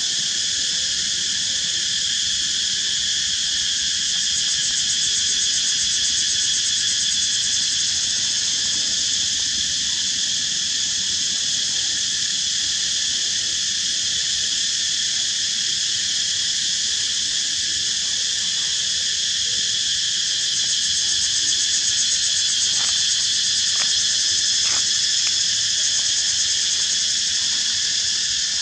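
Steady, shrill chorus of insects: a continuous high drone in several pitch bands that does not let up. A few faint clicks near the end.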